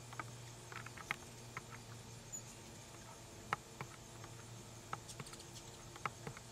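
Hummingbirds chipping around a feeder: short, sharp squeaky chips scattered irregularly, the loudest about three and a half seconds in.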